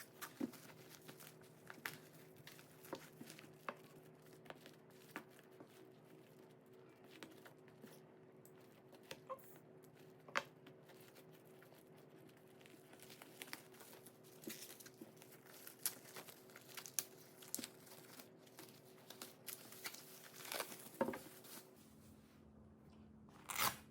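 Packaging being handled: plastic and paper crinkling and rustling, with scattered light clicks and taps, over a faint steady hum.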